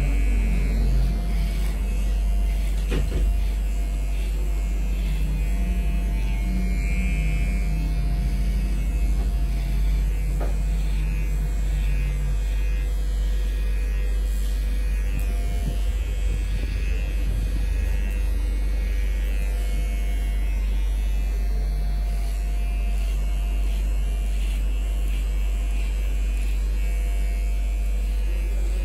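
Electric hair clipper running with a steady buzz while cutting hair over a comb.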